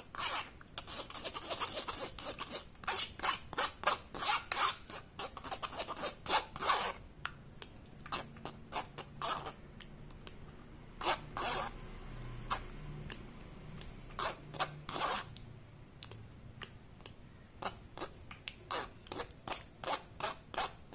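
Metal spoon scraping and rubbing tomato pulp against a stainless-steel mesh strainer in quick irregular strokes, with quieter stretches in the middle. It is the sound of straining blended tomatoes to hold back the seeds and skins.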